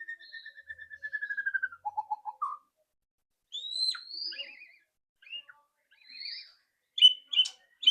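White-rumped shama (murai batu) singing a varied song: a fast trill, then a lower trill, then rising whistled phrases. Near the end come loud, sharp, clipped chattering notes, the 'ketrekan' rattle.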